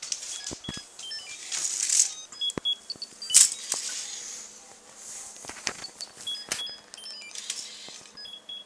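LEGO Droid Developer Kit R2-D2 running a built-in program: its Micro Scout unit gives strings of short electronic beeps at several pitches, with clicks and knocks among them, the loudest knock a little over three seconds in.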